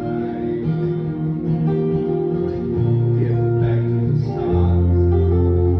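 Live acoustic duo playing: acoustic guitars over long held low keyboard notes, with a deeper held bass note coming in near the end.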